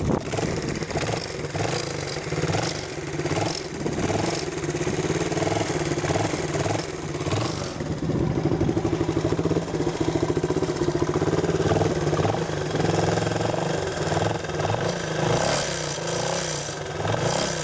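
Suzuki TL1000S V-twin motorcycle engine running steadily with a metallic rattle, the scrap-metal noise being diagnosed.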